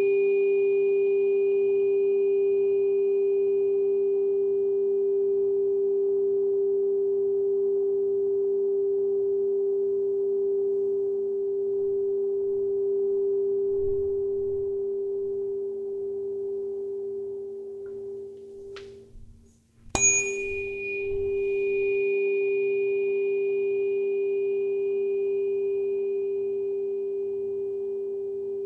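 A Solfeggio-set tuning fork ringing a steady pure tone that slowly fades. About twenty seconds in, the ring stops, the fork is struck again with a sharp knock, the loudest sound, and it rings on at the same pitch.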